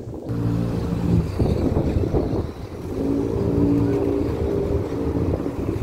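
A motor vehicle's engine running as it approaches, its hum sitting lower in the first second and higher from about three seconds in.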